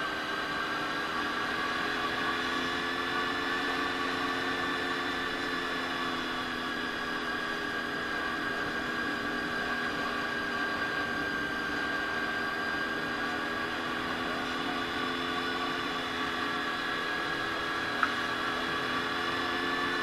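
Honda VFR400 NC30's 400 cc V4 engine running at steady riding revs, its pitch rising and falling slightly, over a steady hiss. A single sharp click about 18 seconds in.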